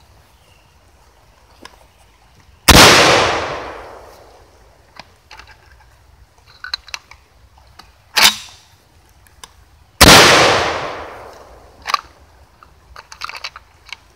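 SDS Lynx 12-gauge semi-automatic shotgun fired twice, about seven seconds apart, each shot loud with a long echoing tail. Between the shots there is a shorter sharp clack, and light clicks come from handling the gun.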